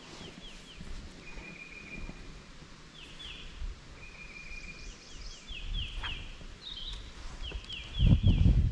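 A bird singing over and over, alternating a held note with quick runs of falling notes. Near the end a low rumble comes in and is louder than the song.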